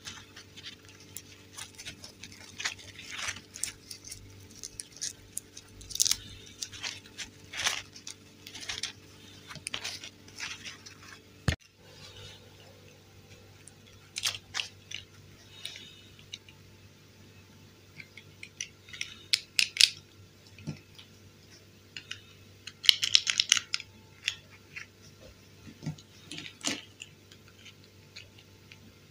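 Plastic toy dolls and their clothes handled close to the microphone: irregular clicks, taps and rustles of plastic and fabric, with a denser stretch of rustling about three-quarters of the way through.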